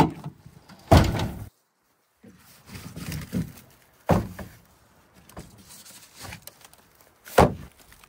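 A Chevrolet pickup's tailgate is unlatched with a click and drops open with a heavy thunk about a second in. Then come knocks and thuds of bundles of split firewood being set down on the tailgate, with sharp thuds at about four seconds and near the end, the last one loud.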